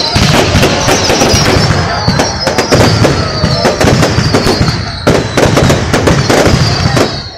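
Fireworks display: dense, rapid bangs and crackling of aerial shells bursting, with long whistles falling in pitch, three in a row.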